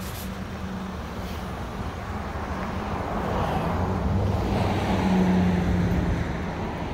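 A road vehicle passing by: engine and tyre noise with a low hum, swelling to a peak about five seconds in and then fading.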